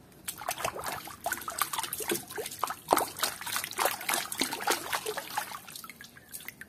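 Water dribbling and splashing in quick, irregular drips as a plastic animal toy is rinsed by hand in clean water.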